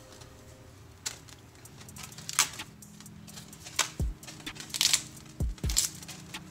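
Fresh kale leaves being torn off their stems and dropped into a stainless steel frying pan: a string of short, crisp tearing and rustling sounds, with a few dull knocks in the second half.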